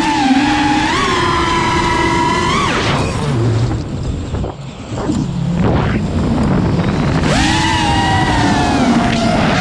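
FPV racing quadcopter's brushless motors whining under throttle, heard from the onboard camera. The pitch wavers with the throttle; about three seconds in the motors drop off to a low, rough sound, then spool back up with a rising whine about seven seconds in.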